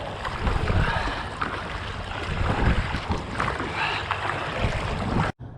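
Kayak paddle strokes swishing and splashing in the lake water, with wind buffeting the microphone. The sound cuts off suddenly near the end.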